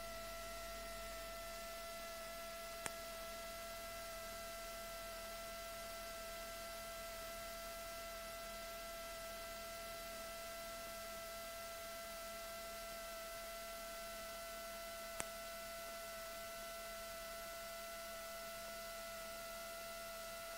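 Steady electrical hum, with a thin high whine that slowly drops in pitch through the first half. Two faint clicks come about three and about fifteen seconds in.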